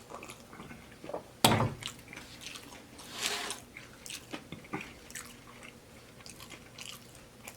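Close-miked chewing of taco salad with crisp baked tortilla shell: irregular mouth smacks and crunches, with one loud sharp crunch about a second and a half in.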